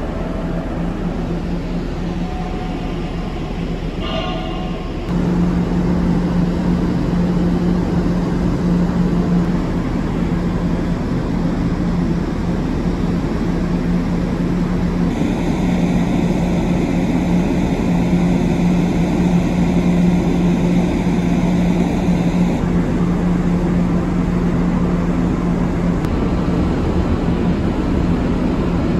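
The Sunflower Kirishima ferry's departure gong chime, heard as a few short notes in the first four seconds, over a steady low drone from the ship. The drone grows louder about five seconds in and carries on as the ship leaves the berth.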